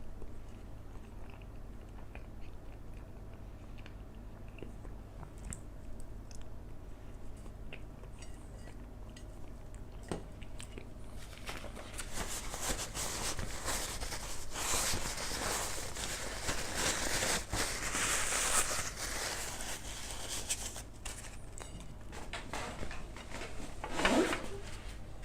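A person eating a banana close to the microphone: soft mouth clicks and chewing, with a louder, noisy stretch of chewing and rustling in the middle and a brief sliding mouth or throat sound near the end, over a steady low electrical hum.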